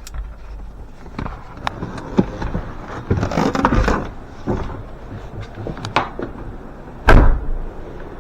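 Handling noises of someone moving about in and around a car. Scattered clicks and knocks, a busy stretch of rustling and knocking about three seconds in, and a loud heavy thump about seven seconds in.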